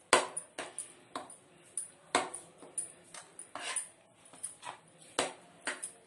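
Spoon stirring thick haleem in a pan, scraping and clacking against the pan in irregular strokes about every half second to second.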